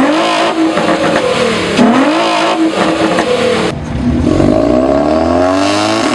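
Car engine being revved hard: its pitch drops and climbs again several times, cuts off sharply a little before four seconds, then climbs in one long rev.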